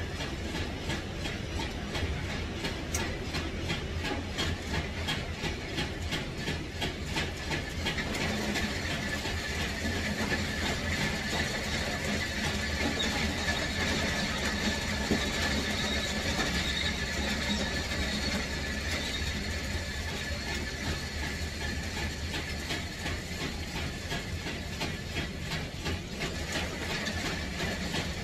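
A machine running steadily, a low rumble with a fast, even clatter over it.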